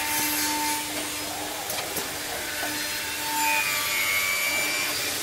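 Bacci Double Jet CNC chair-making machine's spindles and circular saw blades cutting a wooden chair rail: a steady run of cutting noise over a constant machine whine, with a higher tone joining for about a second a little past three seconds in.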